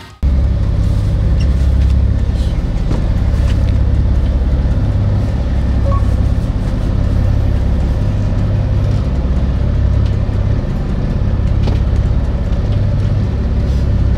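A fishing boat's engine running, a steady low rumble with a few faint clicks over it.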